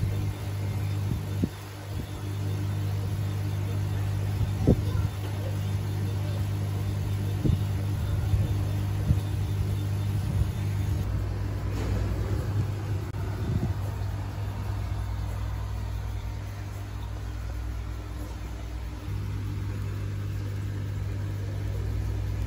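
Laser engraver running: a steady mains-pitched hum from its fans and air pump, with scattered sharp clicks and knocks.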